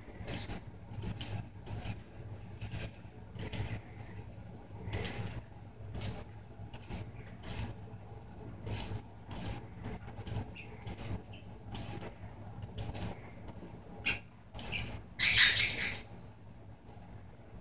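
A budgie's toy jingling and rattling in short, irregular bursts as the bird works at it, with a louder cluster near the end.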